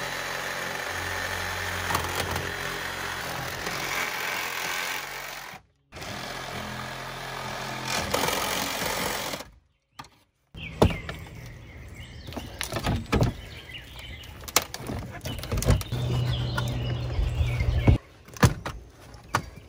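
Cordless reciprocating saw running and cutting through the camper's siding around a window frame in long steady stretches. In the second half there are sharp cracks and snaps as the frame is pried loose, with another stretch of sawing near the end.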